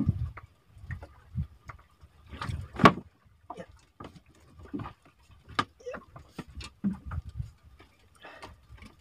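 Irregular knocks, taps and thumps of fishing gear and hands against a small wooden boat's hull as a handline is worked, the loudest knock about three seconds in, over a faint steady high whine.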